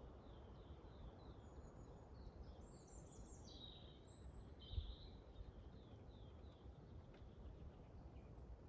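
Faint forest ambience: small birds chirping, with a quick run of short high notes at the start and a brighter song phrase sliding downward in the middle, over a low wind rumble. A short soft thump about halfway through.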